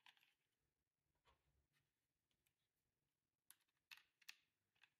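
Near silence broken by a few faint, light clicks and taps as a coiled USB-C power cable and its plastic adapter are handled in a cardboard box. A small cluster of clicks comes about three and a half to four and a half seconds in.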